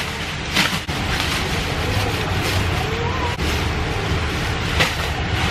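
Steady rain hiss and wind buffeting the microphone with a low rumble. A few brief sharper hisses come through, and faint voices can be heard in the background.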